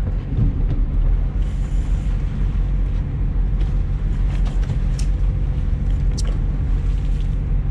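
Boat engine running steadily with a low drone, with a couple of sharp clicks about five and six seconds in.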